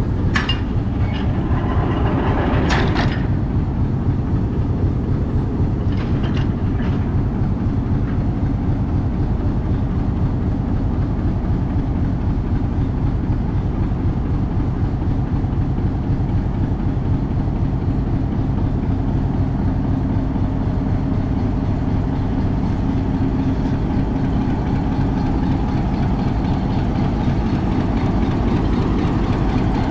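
Pakistan Railways diesel-electric locomotive idling steadily as it stands on a hand-turned turntable. A few sharp knocks come in the first three seconds and again about six seconds in.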